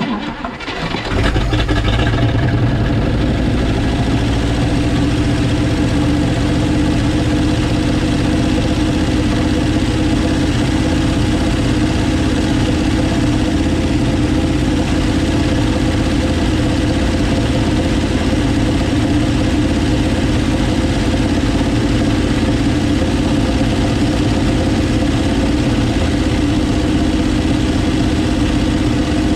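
1957 Chevrolet Bel Air V8 catching about a second in, on its first start after a carburetor rebuild, then running at a steady idle.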